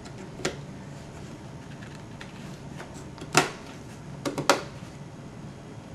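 Sharp plastic clicks from a RAM stick being fitted into a motherboard memory slot: a faint click, a loud click about three and a half seconds in, and a quick run of three clicks about a second later, as the slot's retention clips snap shut.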